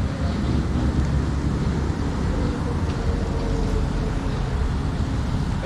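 Wind buffeting the action camera's microphone: a steady low rumble that rises and falls slightly without pause.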